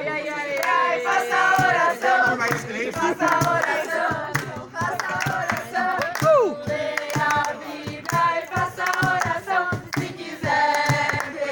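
A group of voices singing together, with hand claps through the singing.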